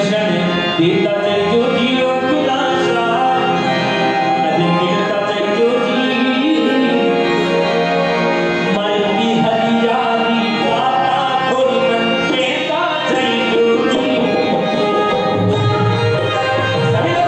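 Devotional bhajan music: a harmonium playing a sustained melody over the steady rhythm of a hand-played dholak drum.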